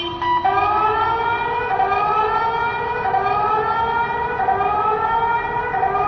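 Several outdoor warning sirens sounding at once across a city, their rising-pitch sweeps overlapping and repeating about every second and a half, starting about half a second in.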